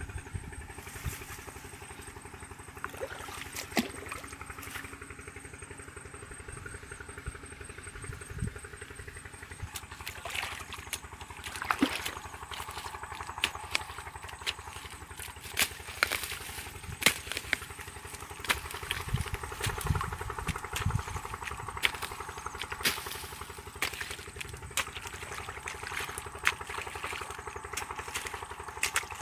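A small engine running steadily, with frequent sharp clicks and knocks over it.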